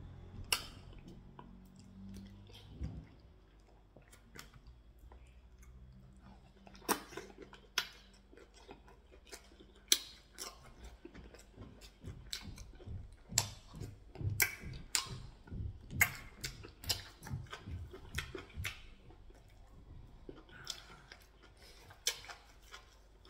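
A person chewing a mouthful of pounded yam with soup and meat, with many sharp mouth clicks and a steady chewing rhythm of about two chews a second through the middle.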